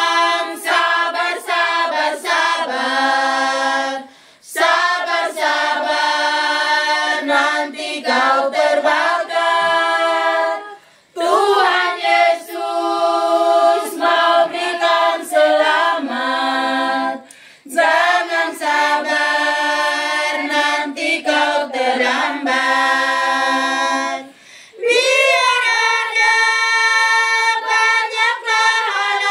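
A small group of women singing an Indonesian Christian hymn together, unaccompanied by instruments. The singing comes in phrases of several seconds, each followed by a brief pause for breath.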